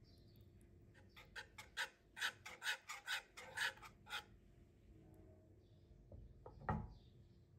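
Wire whisk stirring a thick milk pudding in a metal pan: about a dozen quick scraping strokes, three to four a second. Then a single sharp knock near the end.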